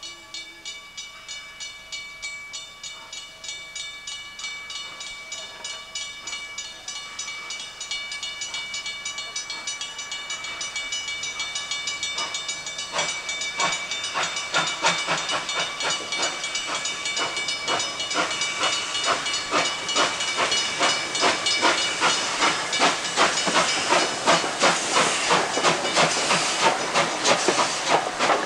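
Victorian Railways R-class 4-6-4 steam locomotive R766 pulling away and coming past close by. Its exhaust chuffs grow louder and quicken from about two to about three beats a second as it gathers speed, with steam hissing from the open cylinder drain cocks. A steady high whine sits under the first half.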